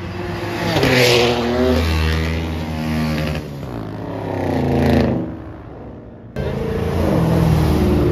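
Pickup trucks accelerating past one after another, each engine's pitch climbing and then fading as it goes by. After an abrupt cut about six seconds in, a Chevrolet Camaro's engine runs with a low, steady note.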